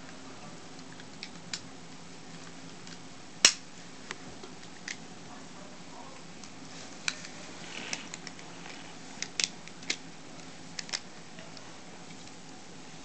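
Plastic parts of a Bandai Dino Megazord toy clicking and snapping as they are folded and fitted together by hand: one loud snap about three and a half seconds in, then a scatter of smaller clicks later on. A faint low hum runs underneath.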